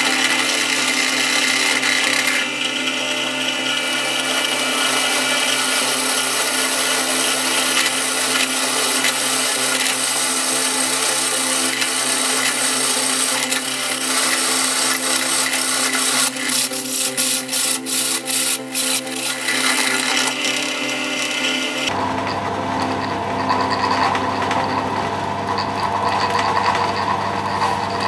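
Drill press with a freshly sharpened twist drill cutting into a steel bar: steady motor hum under the noise of the bit cutting metal, with a run of rapid clicks about two-thirds of the way through. About 22 seconds in the cutting noise stops abruptly and a lower steady hum continues.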